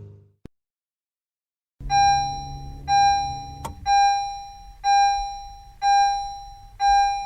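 Car warning chime ringing once a second, six times, each ding fading before the next. A low steady hum runs under the first two dings and stops with a click.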